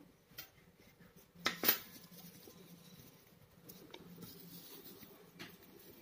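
Kitchen knife tapping and clicking on a glass tabletop as it cuts through flattened dough. There are a few light taps and two sharp clicks close together about a second and a half in.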